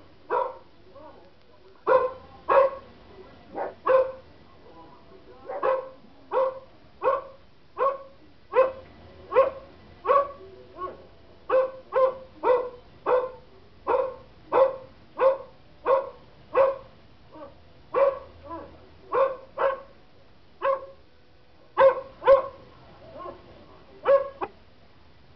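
A dog barking repeatedly in sharp single barks, about one to two a second, with a few short pauses.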